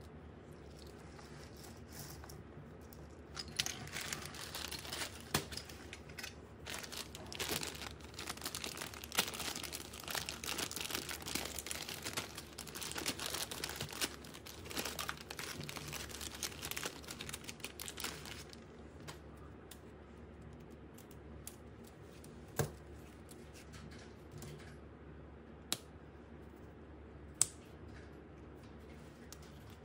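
Packaging being crinkled and torn open by hand, a dense rustling that runs for about fifteen seconds before stopping. Near the end come three separate sharp clicks.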